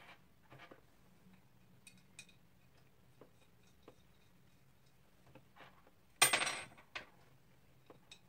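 Small metal assembly hardware being handled: light clicks and clinks, with one louder clatter lasting about half a second around six seconds in.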